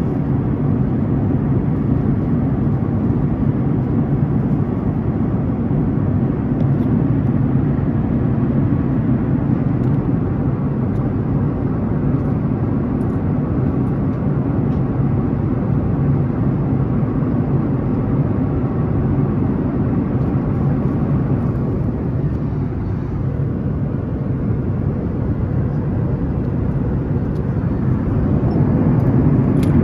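Steady cabin noise of a Boeing 737-900ER in flight, heard inside the cabin at a window seat beside the CFM56-7B turbofan engine: a deep, even roar of engine and airflow. It eases slightly about three quarters of the way through and swells again near the end.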